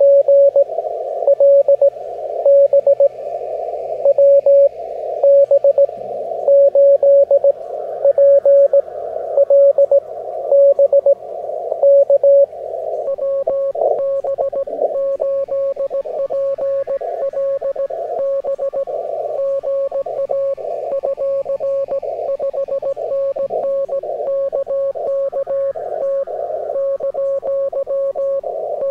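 Morse code (CW) on the 40-metre amateur band from a ham radio receiver: a tone of about 600 Hz keyed in dots and dashes over narrow-filtered band hiss. For the first dozen seconds one strong station sends loud, evenly spaced groups. From about halfway the keying turns denser and steadier, and a second, fainter signal at a higher pitch joins in.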